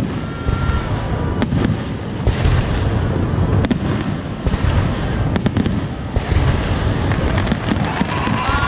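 Aerial fireworks display: continuous deep booming of shell bursts, with sharp cracks standing out several times. A few steady high tones join near the end.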